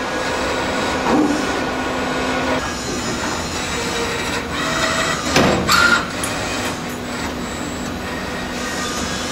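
MTF-40SR CNC spring forming machine running: a steady mechanical whir with a low motor hum, and a short cluster of sharp clicks and a brief rising whine about five and a half seconds in.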